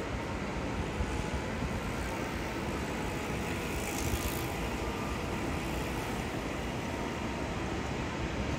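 Steady rumble of heavy vehicle engines and street traffic, with a short hiss about four seconds in.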